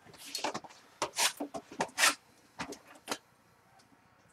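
Short, irregular rustles and scrapes of trading-card packaging being handled and opened, ending a little after three seconds in.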